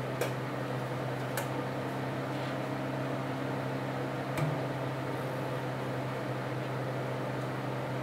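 Steady low machine hum with a few short, sharp clinks of a spoon against a glass mixing bowl as ingredients are stirred, the loudest about four seconds in.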